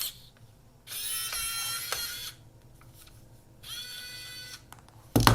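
Small electric precision screwdriver whirring in two bursts of about a second each, backing a screw out of the camera body. A sharp knock near the end.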